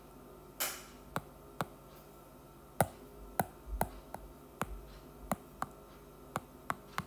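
About a dozen sharp, irregular taps on a tablet's glass screen as keys are pressed on a calculator app, with a short soft brushing sound about half a second in.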